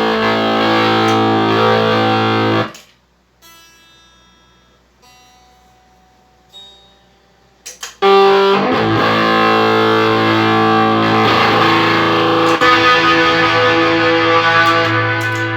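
Electric guitar played through a Line 6 POD HD500X multi-effects processor, with heavy distorted chords. About three seconds in it drops to a few quiet, ringing single notes, then loud distorted playing comes back about five seconds later.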